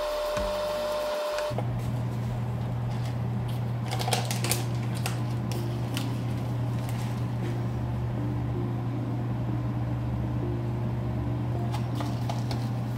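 A steady low mechanical hum that sets in about a second and a half in and holds level, with a few light clicks and taps a few seconds in and again near the end.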